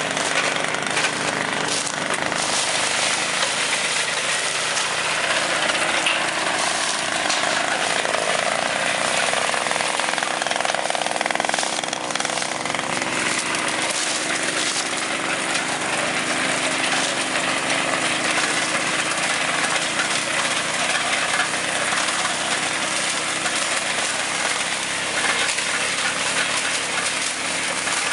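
Tractor-mounted sugarcane harvester and its tractor engine running steadily while cutting through standing cane.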